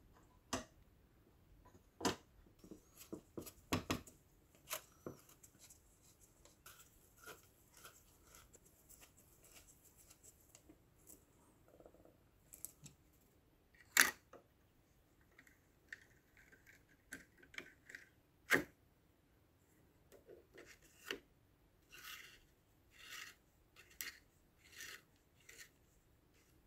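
Metal toy pistol parts being handled and fitted together during reassembly: scattered sharp clicks and light metal knocks, the loudest about halfway through. Near the end come about five short scraping strokes.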